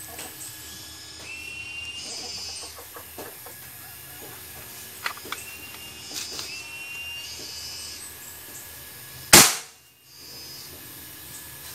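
PCP air rifle fired once at its lowest power setting, about nine seconds in: a single sharp crack, the loudest sound, followed by a short moment of near quiet.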